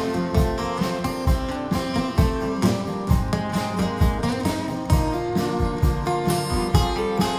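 Acoustic guitars playing together live: an instrumental passage, strummed and picked over a steady beat.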